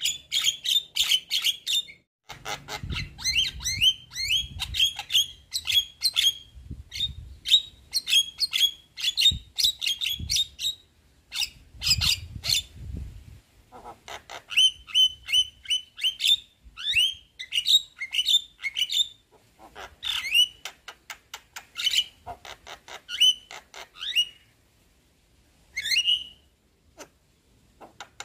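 Javan myna singing a long, rapid run of chattering notes, clicks and short whistled glides, with brief pauses and falling silent twice near the end.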